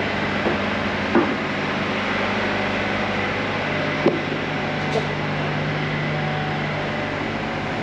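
Steady construction-site machinery drone with a constant low hum, broken by a few sharp knocks, the loudest about a second in and about four seconds in.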